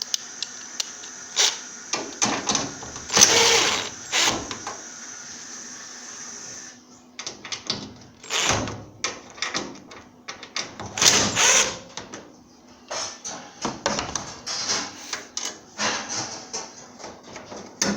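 Irregular clicks, knocks and scrapes of screws being taken out and metal panels of an LG electric dryer being handled during disassembly. A steady high hiss runs under the first part and cuts off about seven seconds in.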